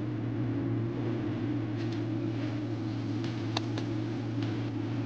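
A steady low machine hum, with a few light clicks of a metal spoon against a bowl as food is scooped out, the sharpest about three and a half seconds in.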